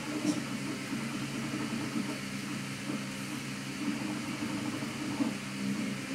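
Steady low mechanical hum, like a running fan or appliance, over a light hiss.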